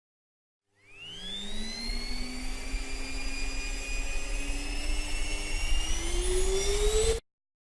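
High-speed electric vacuum motor of a Dyson 360 Eye robot vacuum spinning up with a quickly rising whine, then running on with its pitch creeping slowly higher over a low rumble, and cutting off suddenly.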